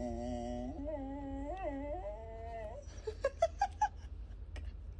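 A dog howling along in a 'singing' attempt: one long wavering howl that bends up in pitch partway through, then a quick run of about five short, higher yipping notes.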